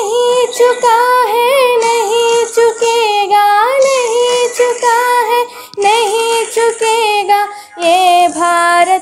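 A girl singing solo in a high voice: held, wavering notes in long phrases, with two short breaths between phrases in the second half.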